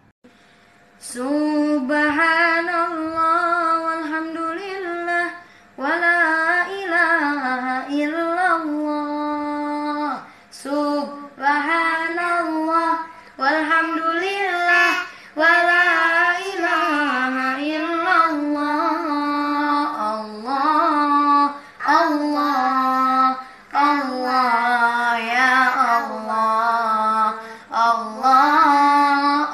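Children's voices, a boy and his younger sister, singing an Islamic sholawat with no instruments: one high melodic line in ornamented, wavering phrases broken by short pauses for breath, starting about a second in.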